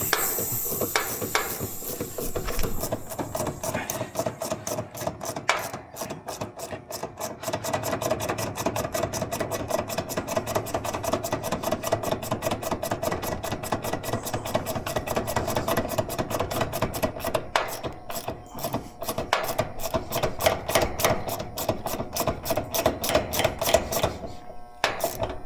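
A refrigeration service valve being opened with a ratchet wrench: rapid, steady clicking over a steady hum, with a brief high hiss at the start as the system is opened after the vacuum.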